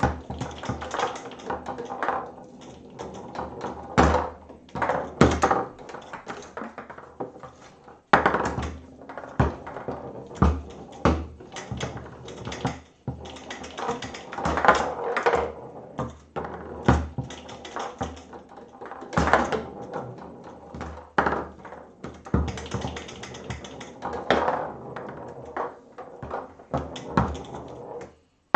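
Foosball table in play: the ball knocking off the plastic figures, with rods sliding and clacking against their bumpers as the rods are worked, in a quick, irregular run of sharp knocks, some much louder than others.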